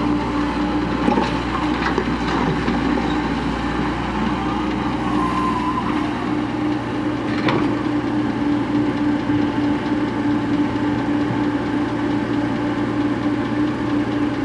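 Tracked excavator's diesel engine running steadily while it digs and loads soil, with a few sharp knocks of the bucket and machinery.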